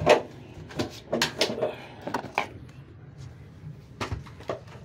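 Sharp knocks and clicks of hard objects being handled. The loudest comes right at the start, several more follow over the next two seconds, and a few more come near the end.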